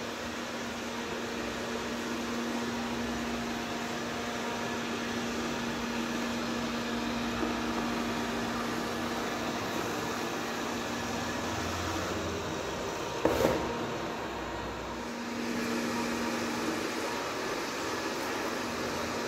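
Robot vacuum cleaner running with a steady motor hum and whir. A single sharp knock a little past halfway.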